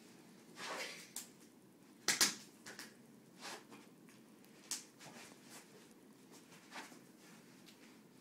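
Scattered knocks, thumps and rustling from people scuffling and kicking in play, with a swish just under a second in and one louder sharp knock a little over two seconds in.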